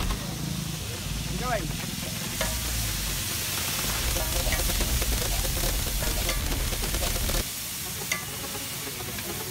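Chole (spiced chickpea curry) sizzling and frying on a large flat iron tawa while a metal ladle stirs and spreads it, a steady hiss throughout. A low rumble underneath stops about seven seconds in.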